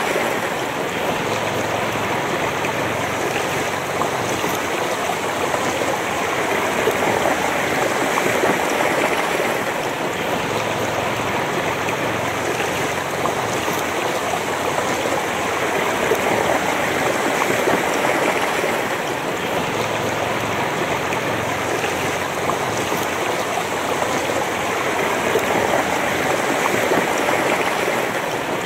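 A shallow, fast mountain river flowing over stones, a steady close-up babble and splash of water that gently swells and eases every few seconds.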